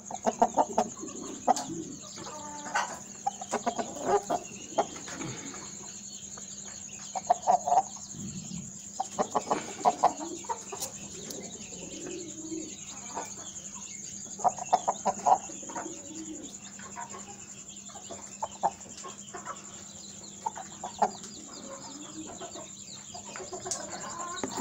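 Aseel chickens clucking in short runs of quick clucks, a run every few seconds.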